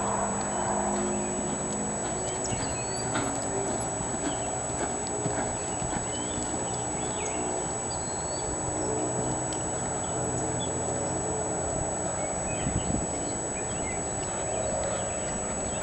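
Hoofbeats of a horse cantering on a dirt arena, over a steady noisy background, with scattered high chirps.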